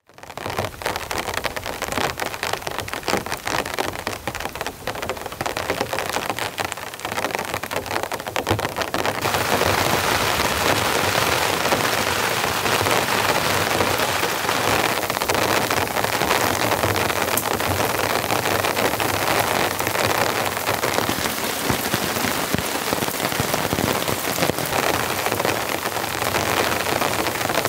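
Heavy rain falling on a nylon tarp. Separate drop hits stand out for the first nine seconds, then the rain becomes a denser, louder steady wash from about nine seconds in.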